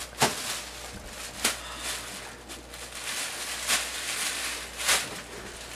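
Soft rustling with a few brief crinkles, about four in all, from a crumpled paper towel and a puffy nylon coat as someone bends down and picks something up off the floor.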